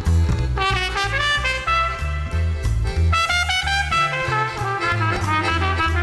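Trumpet playing a melody over a small band's backing, with a steady pulsing bass line and drums.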